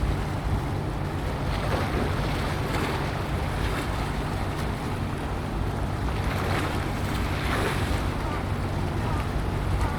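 Wind buffeting the microphone over the wash of sea water, with a steady low hum underneath.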